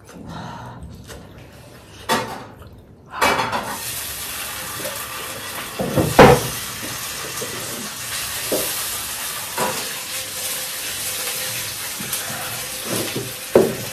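A steady hiss that starts suddenly about three seconds in, with a few sharp clinks of kitchenware over it.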